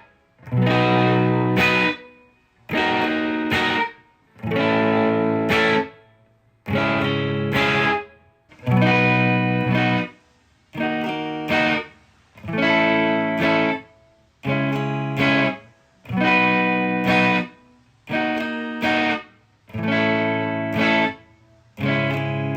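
Humbucker-equipped electric guitar played through a Marshall DSL-1 valve amp into a Blackstar 2x12 cab, miked with an SM57. About a dozen chords are struck one at a time, each rings for a second or so and is then cut off, with a short gap before the next.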